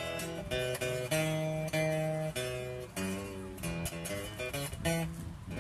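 Acoustic guitar playing an instrumental passage of picked bass notes and chords, one note or chord after another, with no singing.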